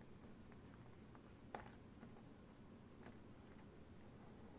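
Near silence with faint scattered clicks and taps from a wire being worked through a small lever switch's leg by hand; the loudest click comes about a second and a half in.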